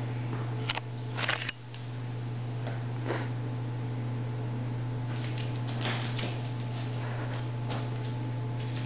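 Steady low electrical hum, with scattered soft taps and scuffs as young owls shuffle and flap on a concrete floor around tennis balls.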